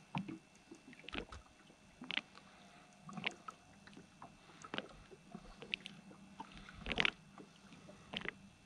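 Small boat on a calm sea: irregular light knocks and taps with water lapping at the hull, a few a second, the loudest about seven seconds in.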